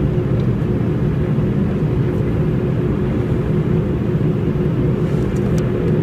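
Airliner cabin noise while taxiing: a steady low rumble of the jet engines and rolling airframe, with a faint constant hum.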